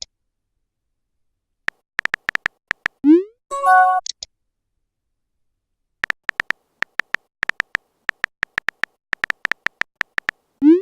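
Phone texting sound effects: a quick run of keyboard taps, a short rising whoosh as a message is sent, then a brief pitched chime. After a pause of about two seconds comes a longer run of taps, ending in another rising whoosh near the end.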